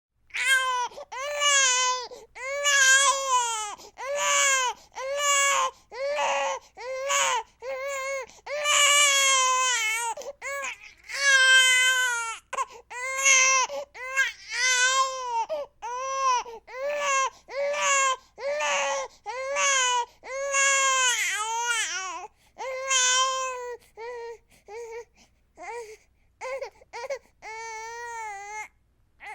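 Newborn baby crying: a run of cries about one a second, each rising then falling in pitch. After about 24 s the cries become shorter and quieter.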